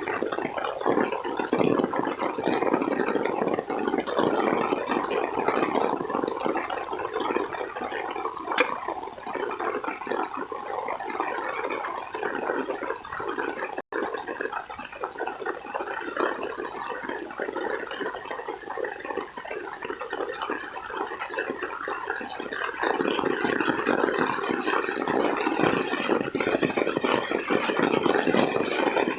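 Heavy rain pouring down in a steady, dense hiss, cut off for an instant about halfway through and growing louder over the last several seconds.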